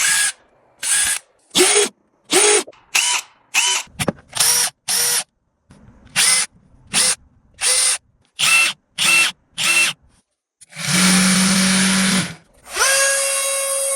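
Bosch Professional power tools, started one after another with quick trigger pulls. There are about fifteen short spin-ups in the first ten seconds, each rising in pitch. Then one tool runs steadily for a second or so with a low hum, and a last one whines up to speed near the end and keeps running.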